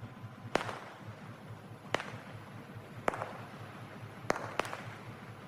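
Firecrackers bursting: about five sharp bangs at irregular intervals, with a low hiss between them.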